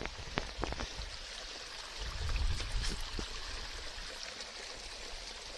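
Steady rush of a flowing stream, with a few sharp knocks in the first second and a brief low rumble about two seconds in.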